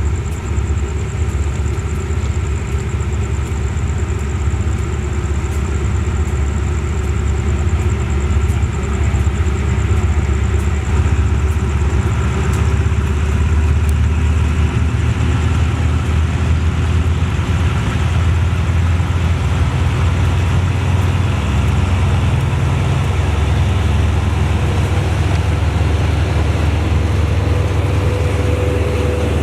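Diesel locomotive engine running steadily, a deep low engine sound that grows a little louder about ten seconds in.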